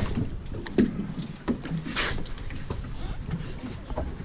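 Wind and water noise on an open boat, a steady low rumble, with a few light knocks on the fibreglass deck and a brief rush of noise about two seconds in while a tautog is handled on the deck.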